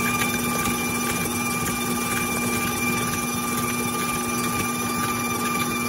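KitchenAid stand mixer running at a steady speed with an even hum, its flat beater paddle creaming butter and sugars in the stainless steel bowl.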